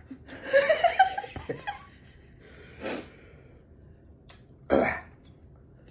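A person coughing and clearing their throat from the burn of hot sauce. There is a voiced outburst near the start, a short cough about three seconds in, and a sharper, louder cough near the end.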